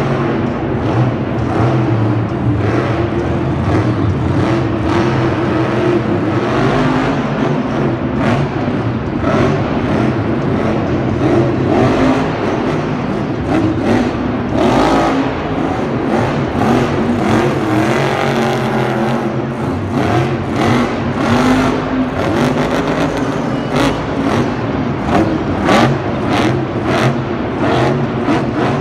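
Engine running and revving, its pitch drifting up and down, with many short clicks and knocks over it.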